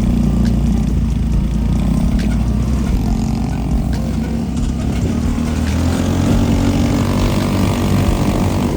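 Off-road buggy's engine running steadily as the buggy drives.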